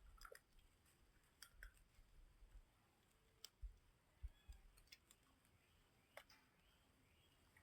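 Near silence with a few faint, scattered clicks and soft low thuds.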